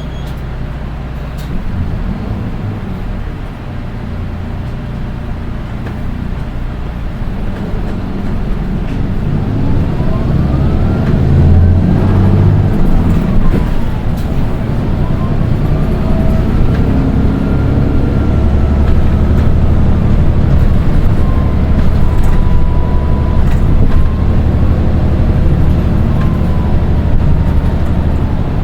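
Nissan Diesel Space Runner RM820 city bus's diesel engine running under load as the bus gathers speed, with a high-pitched whine that rises, drops about halfway through, then rises again and holds steady. The uploader calls this whine a shrill engine noise that only this one of the four RM820s in the fleet makes.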